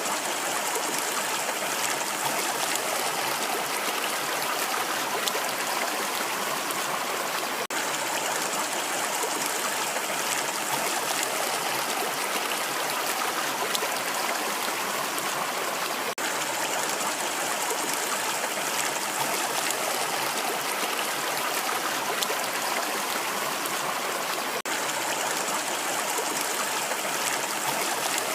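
Rushing water: a steady, even rush with no change in strength, broken by three very brief dropouts about eight and a half seconds apart.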